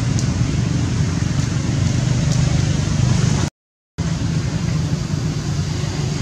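Steady low rumbling background noise with a hiss above it, cut by a half-second dropout to complete silence about three and a half seconds in.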